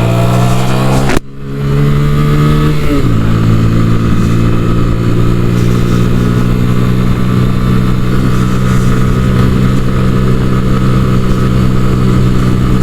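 Sinnis Akuma 125cc motorcycle engine pulling under load, heard on the rider's microphone. The sound briefly cuts out about a second in, the engine note drops in pitch around three seconds in, then holds steady.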